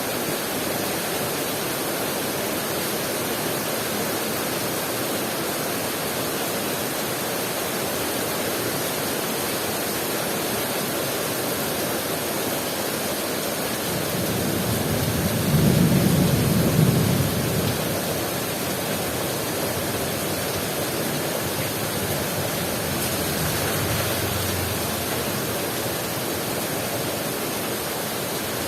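Heavy rain pouring steadily, a dense even hiss. About halfway through, a low rumble swells for a few seconds and fades, with a fainter one later.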